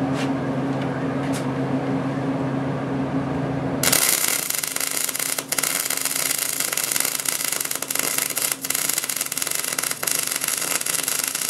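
A MIG welder's arc starts about four seconds in and crackles steadily as a weld bead is laid on steel plate. Before the arc strikes there is a steady electrical hum.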